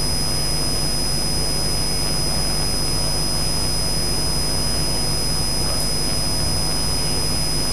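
Steady electrical hum and hiss from the microphone and recording chain, with a low mains buzz and a thin high whine. No speech.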